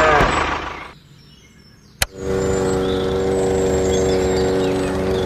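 After a second of near silence, a sharp click, then a steady engine hum with an even pitch.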